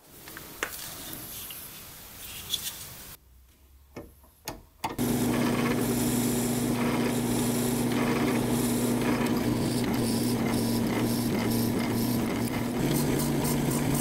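Scraping and a few sharp clicks, then from about five seconds in a drill press runs steadily with a constant hum as the bit drills lightening holes through a 1095 steel knife handle.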